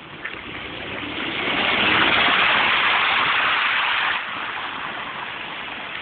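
A car driving past on a wet, slushy street, its tyres hissing through the slush. The hiss swells over the first two seconds and drops off sharply about four seconds in.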